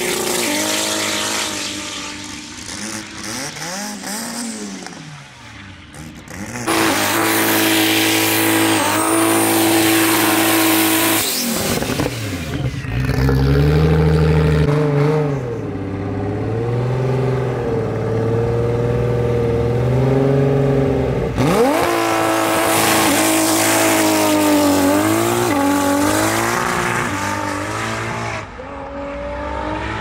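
Toyota Cressida drag car's swapped 2JZ straight-six engine revving and running hard, its pitch sweeping up and down again and again. It gets suddenly loud about 7 seconds in and again about 21 seconds in, with a short dip around 12 seconds.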